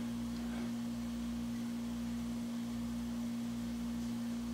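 A steady low electrical hum at one unchanging pitch.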